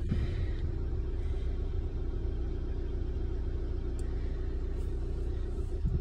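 2005 Rover 75's engine idling steadily, heard from inside the cabin as a low, even rumble.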